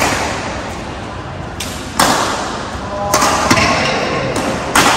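Badminton racket strikes on a shuttlecock during a rally: four sharp smacks, one right at the start, one about two seconds in, one a little past three seconds and one near the end, each echoing in a large hall.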